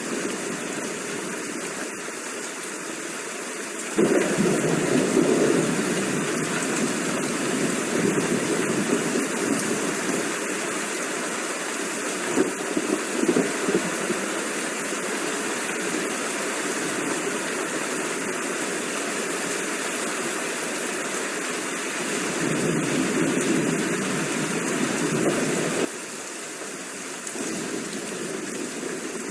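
Steady rain hissing. About four seconds in, a long low rumble of thunder comes in abruptly with the rain and swells now and then. Near the end it cuts off suddenly, leaving the rain alone.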